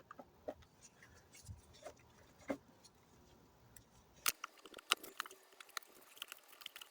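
Faint, scattered clicks and rustling as hands work the vacuum hose and its fittings loose in the engine bay, with a few sharper ticks from about four seconds in.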